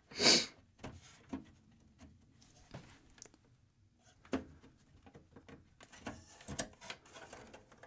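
Scattered light clicks and small knocks of plastic and sheet metal as a hard drive is worked loose from its bay in a desktop computer case, with a short rustle at the start and the clicks coming more often near the end.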